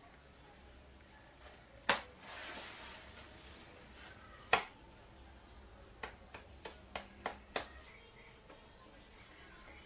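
Handling sounds from a person moving on a chair and fiddling with something small: two sharp knocks about two and a half seconds apart, then a quick, irregular run of about seven light clicks.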